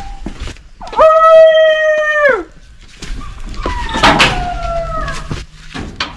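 Alaskan malamute howling: one loud, long, steady howl that drops at the end, then a second, fainter howl sliding down in pitch.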